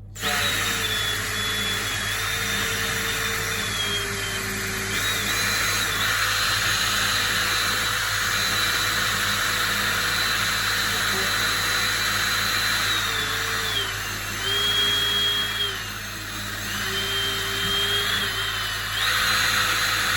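Electric drill spinning a 6 mm diamond-tipped bit through polished porcelain tile, with a steady motor whine over the grinding hiss of the bit cutting. The drill pauses for a moment at the start, and its pitch dips and recovers a few times as the speed and pressure change.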